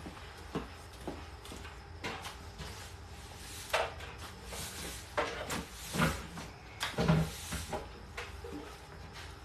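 Irregular knocks, clunks and short scrapes of objects being picked up, set down and shifted, with the loudest knock about four seconds in.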